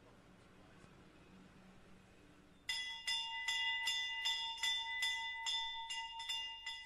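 A small bell rung repeatedly, about two to three strikes a second with a steady ring carrying between strikes, starting about two and a half seconds in after a stretch of faint room tone.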